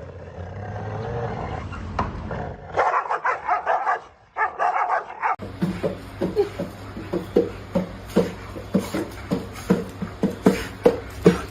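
Dog vocalizing: a whining call at first, then loud barks, then a fast run of short repeated barks in the second half.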